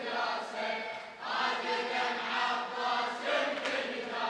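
Crowd of mourners chanting a Shia latmiya refrain together in unison, many voices blended, while the lead reciter is silent.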